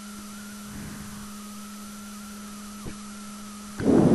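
Steady electrical hum with a fainter, slightly wavering high whine over it. There is a small click about three seconds in and a brief, louder rush of noise near the end.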